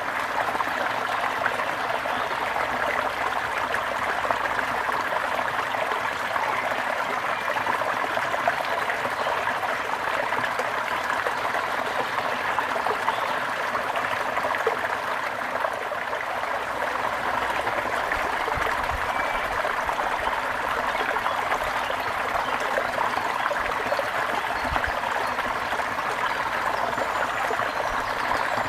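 A gentle river flowing: a steady, even wash of running water that does not change.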